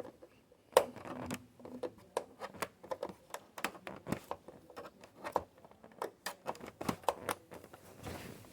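Irregular small clicks and taps, two or three a second, with the sharpest about a second in: hands and a screwdriver working on the plastic casing of a Dell Inspiron One all-in-one computer as it is screwed back together.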